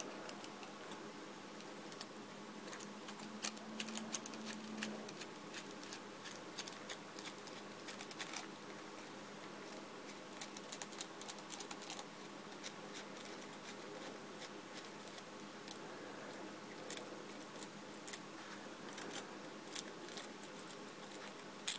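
Soft, irregular clicks and taps of small metal parts as a screwdriver and fingers work a nut and bolt loose on a metal construction toy.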